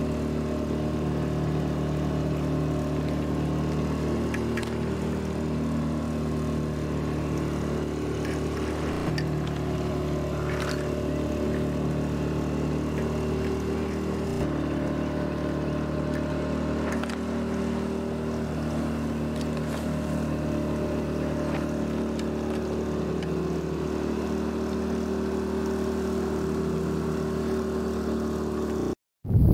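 Small outboard motor pushing a 19-foot sailboat, running at a steady speed with an even drone that holds one pitch. It cuts off abruptly just before the end.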